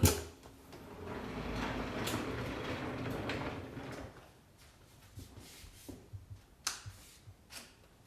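Hard plastic parts of a Karcher SE 6.100 wash vacuum being handled: one sharp click, a few seconds of rustling, then a scatter of light clicks and knocks.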